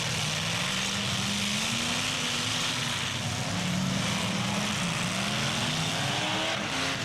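Several car engines running hard at once in a demolition derby, their pitch slowly rising and falling as they rev.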